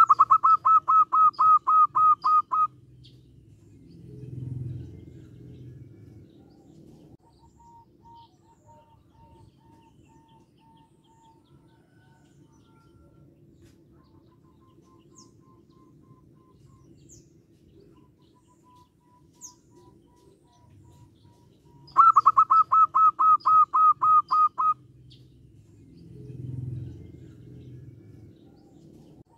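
Zebra dove calling: a loud run of about a dozen rapid staccato notes, given twice about 22 seconds apart. Each run is followed by a low coo, with soft repeated notes in between.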